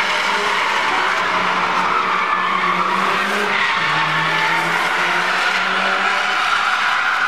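Subaru Impreza WRX STI's flat-four engine held at high revs while its tyres skid and squeal as the car slides through the turns; the engine note drops lower for about a second near the middle.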